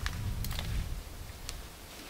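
Gloved hands sifting through loose potting soil in a metal wheelbarrow, searching for potatoes: a soft rustle with two light clicks, over a low rumble.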